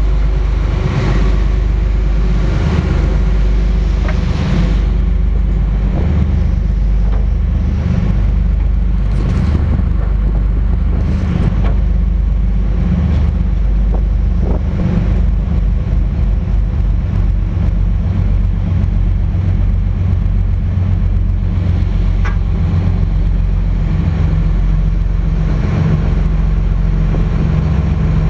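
Twin Cummins QSC 600 hp marine diesels driving Hamilton waterjets, running under way with a loud, steady low drone.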